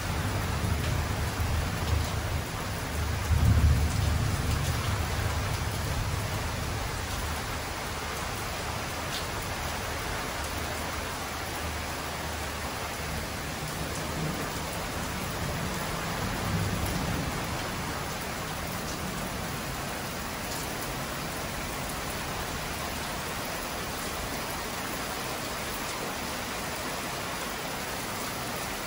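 Heavy rain pouring steadily, with thunder rumbling: a loud rumble about three seconds in that fades away over the next few seconds, and a fainter one a little past the middle.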